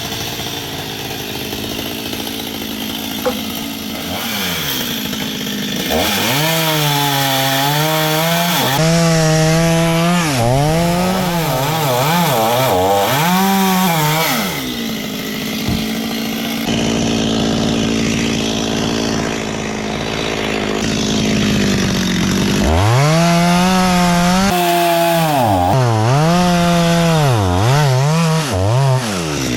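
Two-stroke chainsaw running hard, its engine pitch repeatedly dipping and recovering as the chain bogs and clears in the wood. It runs at a lower note for the first few seconds and then revs up. It holds steady for a while, drops briefly about two-thirds of the way through, and then revs and dips again.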